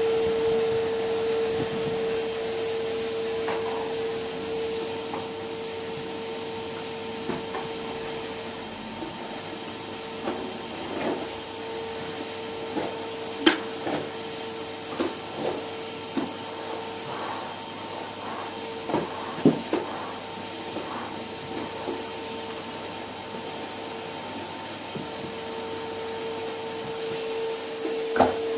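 Numatic Henry vacuum cleaner running with a steady hum, with scattered knocks and clicks over it. The sharpest knocks come about halfway and about two-thirds of the way through.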